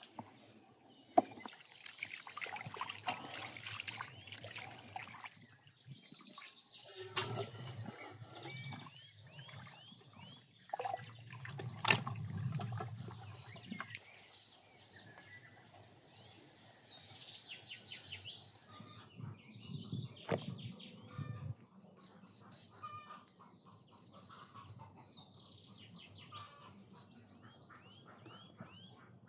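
Birds chirping now and then against quiet outdoor ambience, with scattered clatter and knocks of handling; two sharp knocks stand out, about a second in and about twelve seconds in.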